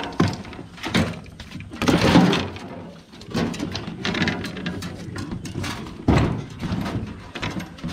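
A run of irregular knocks and thumps with rustling noise between them, loudest about two seconds in and again about six seconds in.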